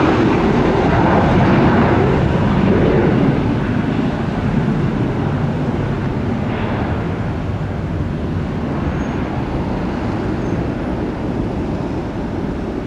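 Jet airliner's engines at takeoff power: a loud, deep rumble that eases a little about three seconds in and then carries on steadily.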